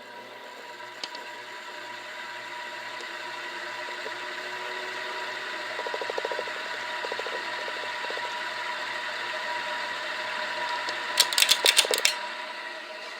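Hampton Bay Landmark ceiling fan running, getting louder over the first few seconds as it comes up to speed, with a steady whine and a loud bearing noise from bearings that water from a leak has damaged. Brief rattles come about six and seven seconds in, and a burst of sharp rapid clicks near the end is the loudest sound.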